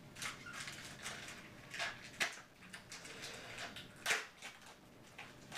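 A pack of football trading cards being opened and handled: a string of short rustles and crinkles of the wrapper and cards sliding against each other, the sharpest ones about 2 and 4 seconds in.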